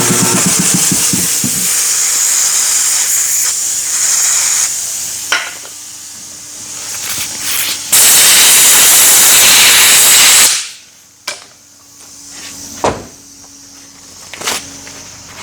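Aerosol brake cleaner sprayed in long hissing bursts to degrease the cylinder's clevis and threads: one spray for about five seconds, a louder one of about two and a half seconds near the middle, then a few sharp clicks and knocks.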